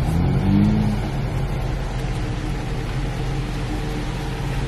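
Car engine heard from inside the cabin, its pitch rising briefly in the first second as the car creeps forward, then settling into a steady idle.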